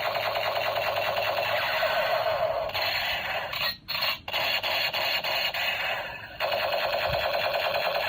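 Battery-powered toy gun playing its electronic firing sound effect through a small, tinny speaker: a rapid machine-gun-like rattle in bursts, broken by short pauses about four seconds in and again past six seconds, then cutting off abruptly.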